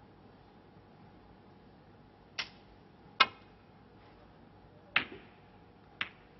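Snooker shot: four sharp clicks of cue tip and snooker balls striking. The cue hits the cue ball, then the cue ball clacks against other balls and a cushion. The second click is the loudest and rings briefly.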